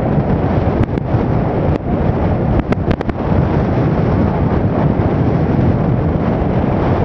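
Wind rushing over the microphone of a camera on a moving motorbike, a loud steady rumble with riding noise under it, and a few sharp clicks about three seconds in.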